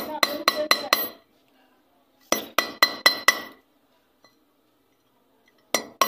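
Hammer tapping a centre punch into the bearing seat of a water-pump motor's metal end plate, in quick runs of about five ringing metallic taps: one run at the start, one about two and a half seconds in, and another starting near the end. The punch marks roughen the loose bearing seat so the new bearing goes in tight.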